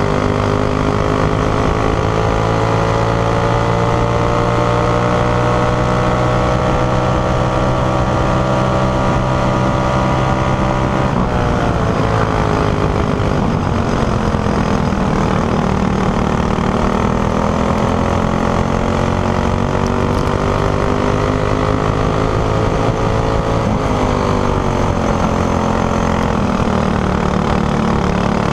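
Racing kart engine heard onboard under hard acceleration: its pitch climbs steadily, drops sharply about eleven seconds in and again near twenty-four seconds as the driver comes off the throttle, then climbs again.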